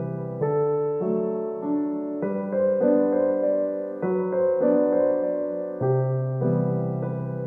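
Background piano music: a slow melody with notes changing about once a second over held bass notes.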